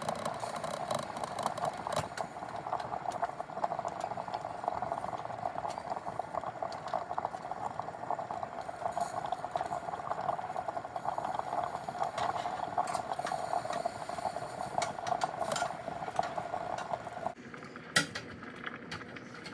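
Pots of water boiling on a stovetop, a steady bubbling that cuts off suddenly about seventeen seconds in, followed by a few light clinks.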